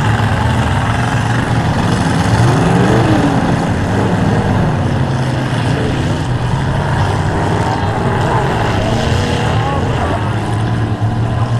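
Several demolition derby cars' engines running hard in the arena, revving up and down over a dense, steady din.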